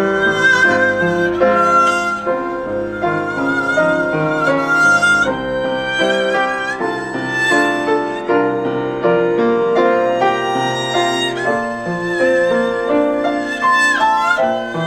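Violin playing a melody with vibrato over piano accompaniment, in a newly composed chamber piece.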